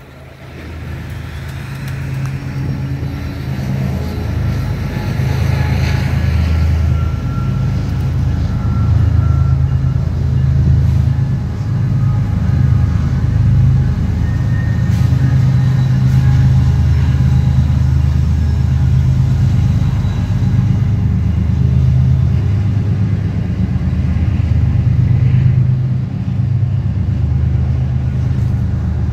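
A vehicle's low, steady engine rumble that swells over the first few seconds and then holds.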